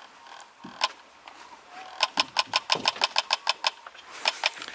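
Airsoft electric gun firing: a single shot, then about two seconds in a full-auto burst of sharp mechanical clacks at roughly eight shots a second lasting under two seconds, and a few more shots near the end.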